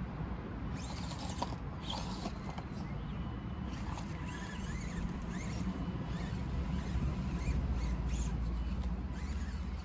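Element Enduro24 micro RC crawler's small electric motor and gears whining in short rising and falling spurts as it crawls over rocks and dirt, with light clicks and scrapes of the tyres on stone.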